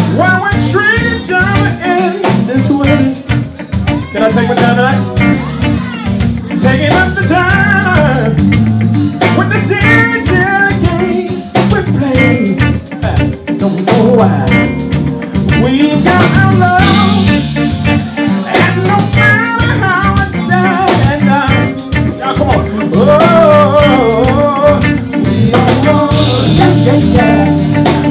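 A live band playing loudly: a singer over electric guitars, drums and keyboard, with a steady beat.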